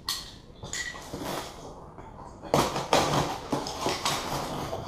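Cardboard shipping box being cut open with a knife, followed by foam packing peanuts rustling and crackling as handfuls are pulled out of one end, louder from about halfway through.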